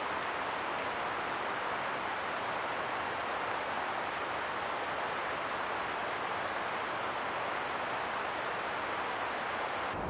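Steady, even rushing of distant flowing water from the rain-swollen creek and falls, with no distinct events.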